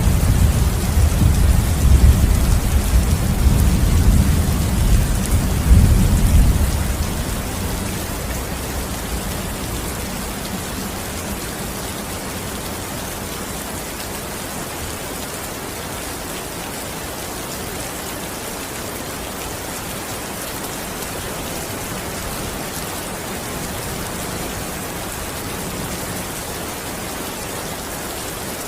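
Rain falling steadily, with a deep roll of thunder rumbling over it that dies away about seven seconds in, leaving an even hiss of rain.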